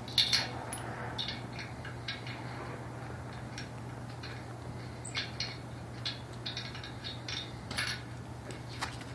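Scattered small metallic clicks and taps from hand work at the base plate of a metal balcony railing post, over a steady low hum.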